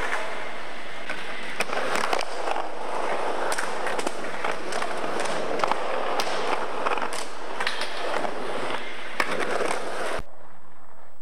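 Skateboard wheels rolling on wooden ramps and a concrete floor, with many sharp clacks and knocks of the board and trucks hitting and landing. It cuts off suddenly near the end.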